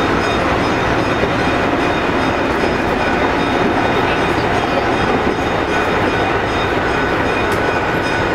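Nebraska Zephyr's stainless-steel streamlined passenger cars rolling past, a steady noise of steel wheels on the rails.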